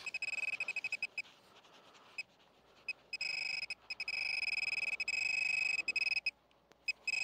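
Metal-detecting pinpointer (XP Mi-4) sounding in the dug hole: rapid high beeps for about the first second, then a nearly continuous high tone for about three seconds. The tone signals that the probe is right on a metal target in the soil.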